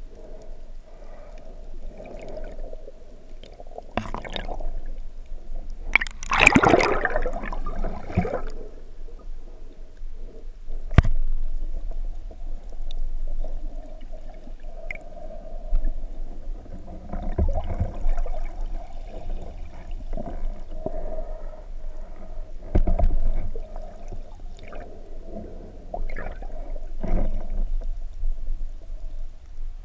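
Shallow sea water heard underwater through a camera housing: a steady muffled wash with gurgling, broken by several louder surges of turbulent water from waves breaking just overhead. A single sharp knock comes about eleven seconds in.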